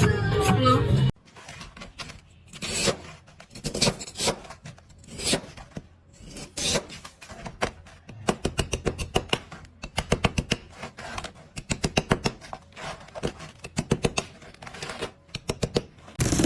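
Ice crackling and clicking in quick irregular clusters of sharp cracks, growing denser in the second half. Background music cuts off about a second in.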